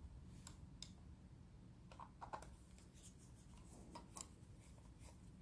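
Very faint, scattered small clicks and light scraping of a screwdriver bit engaging a screw in a plastic computer mouse shell while the screw is started.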